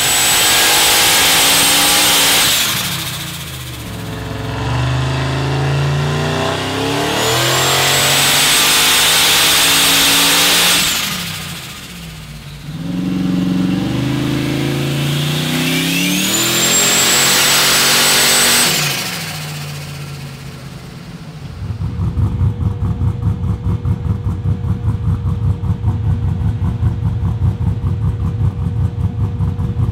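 Turbocharged 403-cubic-inch stroker GM LQ9 cast-iron V8 revved hard on a chassis dyno, three times, with a high whine over each rev before it drops back. After about two-thirds of the way through it settles into a loping, pulsing idle.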